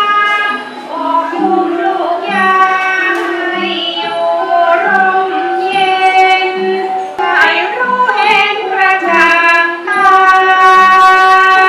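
Background music: a sung melody with long held notes over a steady beat.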